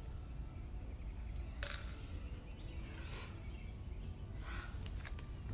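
A few short, breathy exhales and sniffs from people moving through a sun salutation, over a steady low background rumble.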